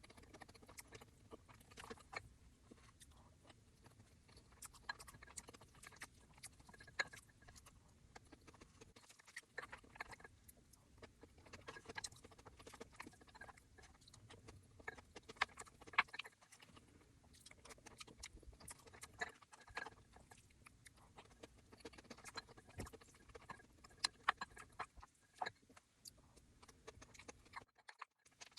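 Quiet close-miked chewing and eating, with many irregular wet smacks and crisp clicks of food in the mouth.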